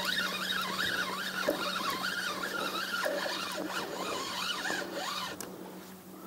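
Spinning reel being cranked: a wavering mechanical whir that rises and falls with each turn of the handle as line is wound in against a small hooked pike. The whir stops near the end.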